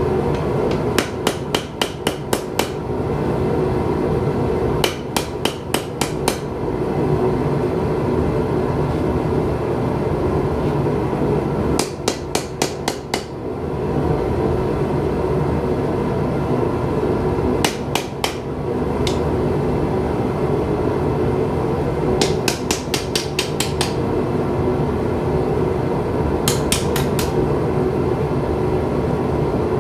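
Hammer blows ringing on hot steel at the anvil as the finger-ring hole is drifted through a knife blank, struck in quick runs of three to nine blows with pauses between. Under them a propane forge burner runs with a steady roar.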